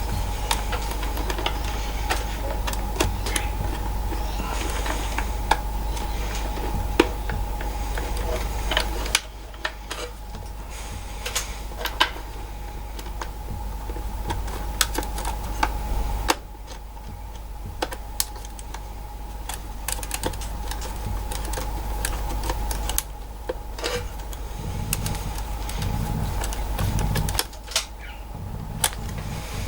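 Small clicks and taps of hands and a screwdriver working wires into the terminals of a lathe's electrical panel, over a steady hum.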